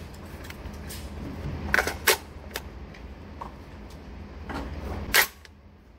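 Handling noise from a bullpup 12-gauge shotgun: several sharp metallic clicks about two seconds in, then a single louder, sharper clack a little after five seconds.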